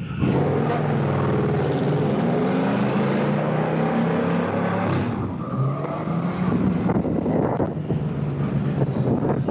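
Honda Goldwing DCT Tour's flat-six engine under way at low speed, its pitch rising and falling as it accelerates and shifts, with a second pull starting about halfway through.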